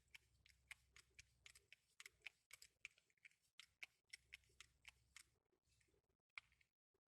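Faint, quick small clicks and taps of a screwdriver and knife parts being handled during disassembly, several a second, stopping about six and a half seconds in.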